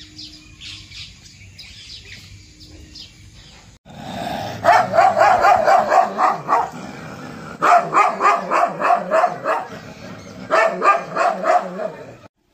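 Dog barking in three bouts of quick, rapidly repeated barks, each about two seconds long, the first starting about four seconds in.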